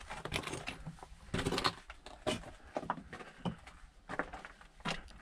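Footsteps crunching on gravel and broken brick rubble, an uneven step roughly every half second to second.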